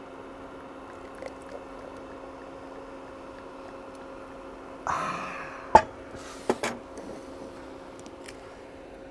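Prosecco poured from the bottle onto ice in a chilled glass: a short splash and fizz about five seconds in, then a sharp glassy clink and a few light knocks. A faint steady hum runs underneath.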